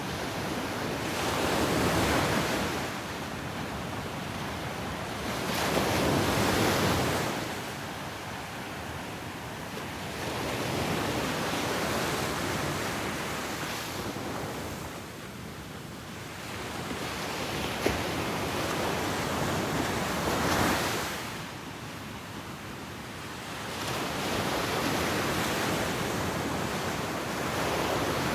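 Ocean surf breaking on a beach, a rushing wash of water that swells and falls in slow surges every four to six seconds.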